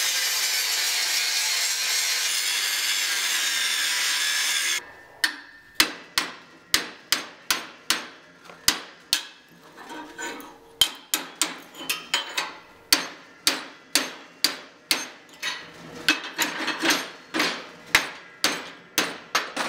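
An angle grinder's cut-off wheel slicing through a steel billet, a steady high hiss that stops abruptly about five seconds in. Then a long run of sharp hammer strikes on steel, about two a second, each ringing briefly, as the mild steel welding can is knocked off the billet.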